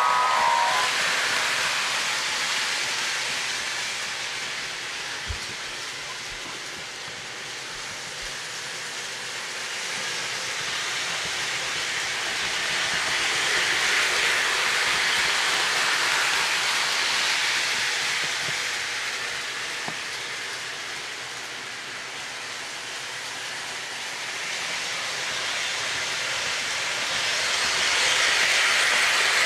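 O-gauge model train led by a Williams EMD GP9 locomotive running on track: a steady rushing rumble of motor and wheels that swells as the train passes close, around the middle and again near the end. A horn blast dies away in the first half second.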